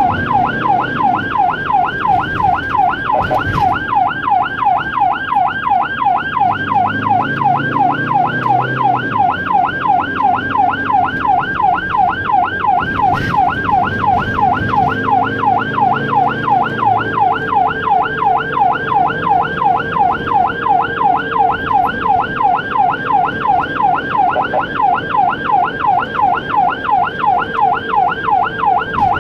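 Ambulance siren on its rapid yelp setting, sweeping up and down in pitch about three times a second without a break, heard from inside the ambulance's cab.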